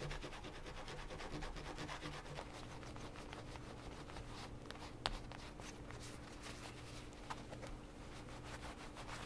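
A paraffin-and-beeswax puck rubbed hard back and forth into trouser fabric along the waistband and seams: a fast, steady run of short, dry scratchy strokes. There is a single sharp click about five seconds in.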